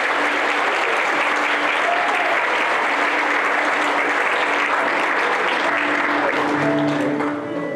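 Congregation applauding steadily, the clapping thinning out near the end as music comes through.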